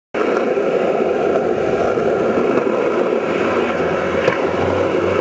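Small hard wheels rolling over asphalt, a steady rumble.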